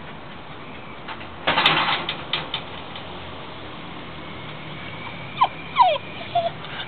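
Dogs on leashes: a brief rustling scuffle about a second and a half in, then two short whimpers falling in pitch near the end.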